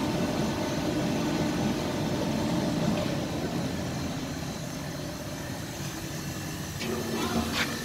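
Francis Shaw K1 Intermix rubber mixer running empty in a dry test: a steady mechanical hum with a low tone, getting a little quieter about halfway through. A couple of short metallic clicks come near the end.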